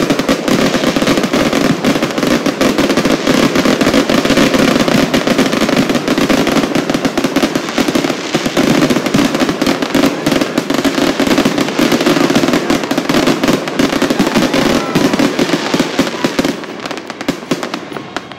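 Fireworks going off in a rapid, unbroken barrage of bangs and crackling, thinning out and getting quieter near the end.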